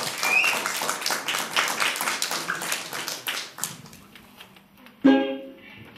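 Audience applauding with dense clapping that dies away after about four seconds. About five seconds in, music starts with a sudden loud chord, the loudest moment, which then fades slowly.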